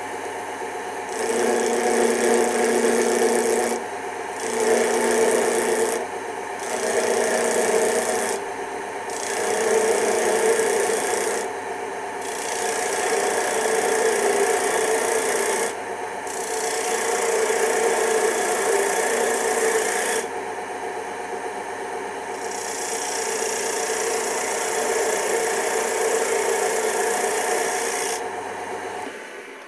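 Wood lathe running while a skew chisel hogs material off a small face-grain wooden plug spinning on a glue block. It cuts in about eight passes of one to four seconds each, with short quieter gaps as the chisel lifts off. The motor hum stops near the end.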